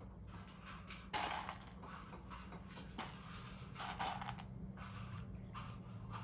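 Irregular scraping and rattling from a cat pawing at a food puzzle feeder, a few short bursts over a steady low hum.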